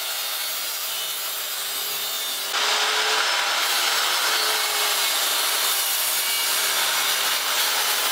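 Corded circular saw running under load and cutting wood: first through the plywood base of the jig, then, after an abrupt change about two and a half seconds in, through a wide pine board.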